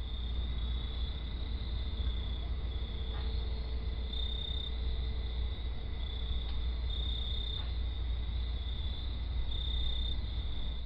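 Night ambience: crickets chirping steadily in a high, pulsing trill over a low rumble.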